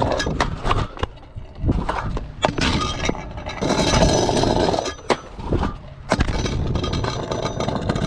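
Hard wooden scooter wheels, cut from hardwood flooring with no urethane, rolling over concrete with a rough, loud rolling noise. The rolling is broken by several sharp clacks and knocks as the scooter strikes the ground.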